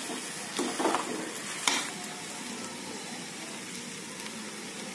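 Potatoes and green peas frying in oil and masala in a metal kadhai: a steady sizzle. A slotted metal spatula scrapes against the pan a few times in the first two seconds as the mixture is stirred.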